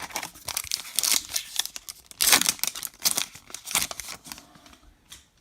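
Baseball card pack wrapper being crinkled and torn open by hand: a run of crackly rustles, loudest a little past two seconds in, dying away near the end.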